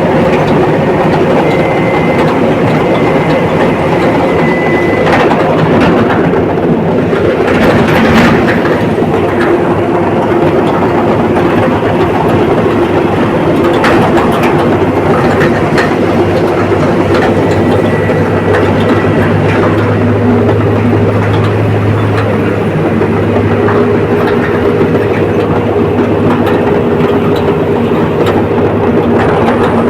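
Komatsu D85ESS crawler bulldozer working: its diesel engine running steadily under load, with a continuous clatter of the steel tracks and occasional sharp knocks. A deeper engine hum comes up for several seconds past the middle.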